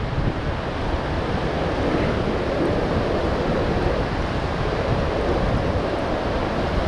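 Steady rush of a whitewater rapid, with wind buffeting the microphone.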